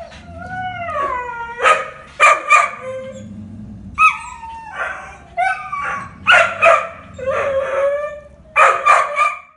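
Kennelled shelter dogs barking in quick clusters of two or three, with long falling howling cries between the barks.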